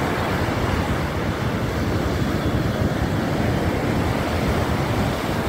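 Sea surf breaking on a sandy beach: a steady rushing noise, with a low uneven rumble of wind on the microphone.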